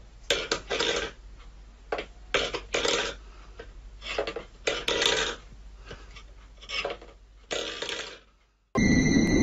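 Stainless steel pet bowl scraping and rattling against a wooden floor as a cat paws and pushes it, in irregular short rough bursts.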